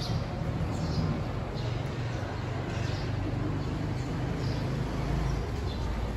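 Airport terminal background: a steady low hum under an even wash of room noise, with faint short high chirps here and there.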